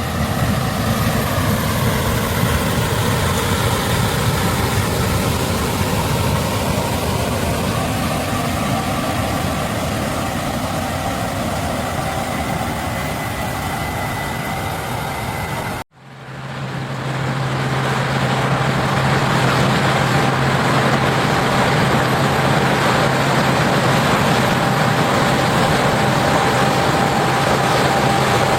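Case IH 8260 Axial-Flow combine running steadily while harvesting corn, a dense mechanical din of engine and threshing machinery. The sound cuts out briefly about halfway through, then comes back with a steadier low hum.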